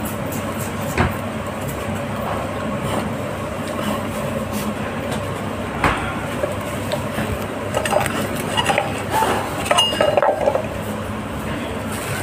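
Steady background hum of a dining room with light clicks and clinks of chopsticks and dishes: single ones about a second in and six seconds in, and a quick run of them in the last few seconds.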